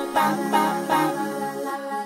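Background music: pitched notes striking about twice a second over a sustained low tone.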